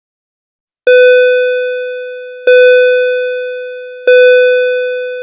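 School bell sound effect ringing the end of class: one steady-pitched bell struck three times, about a second and a half apart, each ring fading slowly.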